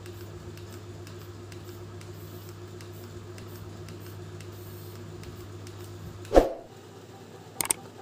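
Small DC gear motor of a toy RC tractor running steadily with a low hum and faint regular ticking as it pulls a brick-loaded trailer. The hum cuts off with a sudden thump about six seconds in, followed by a couple of faint clicks near the end.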